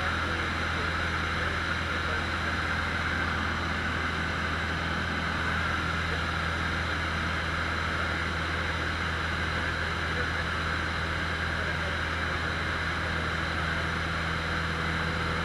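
Cessna 150's four-cylinder Continental O-200 engine and propeller running steadily in flight, heard inside the small cockpit as a constant low drone under an even hiss.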